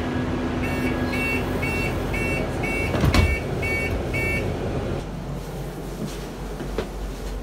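A vehicle warning beeper sounding about eight short two-tone beeps, roughly two a second, over a steady low rumble, with one heavy thump about three seconds in.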